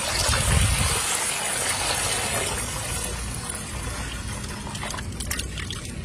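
Water running and splashing, a steady rushing noise that eases off after about three seconds, with a few light clicks near the end.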